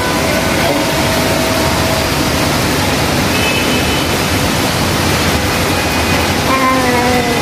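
Heavy monsoon rain pouring down, a dense, steady hiss of rain.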